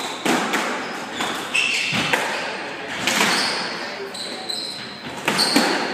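Squash rally: the ball cracks off rackets and walls several times, with sneakers squeaking on the wooden court floor.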